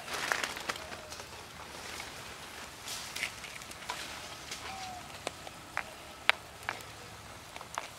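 A small wood fire crackling under a cooking pot, with scattered sharp pops and ticks, while a coconut-shell ladle stirs and scrapes through a simmering vegetable stew.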